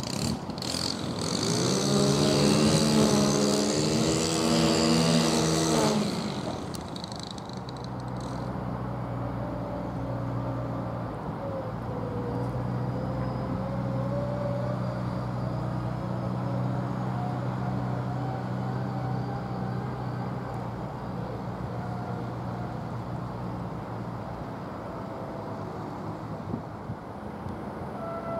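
A motor vehicle engine. For the first several seconds it is louder, its pitch going up and down, then it settles into a steady engine hum with a faint, slowly rising whine above it.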